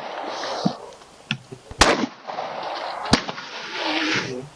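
Gunshots: a faint shot about a second in, then two sharp, loud shots a little over a second apart, with a steady rushing noise between them.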